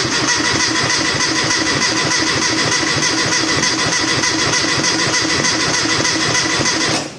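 Classic Mini's 998cc engine cranking steadily on its starter motor without firing, stopping near the end. It won't catch because the mechanical fuel pump is not drawing fuel.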